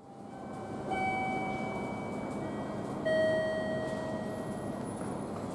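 Station platform chime: two bell-like notes about two seconds apart, the second lower and louder, each ringing on and fading. A steady rumble of platform noise runs underneath.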